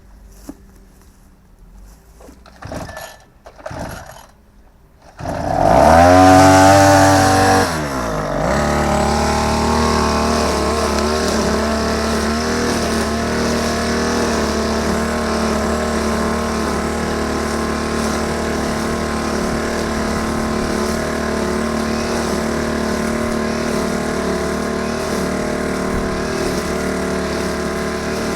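Small petrol engine of a grass-cutting machine, starting after two short bursts of sound. It catches about five seconds in, runs high for a couple of seconds, then drops back at about eight seconds to a steady running note.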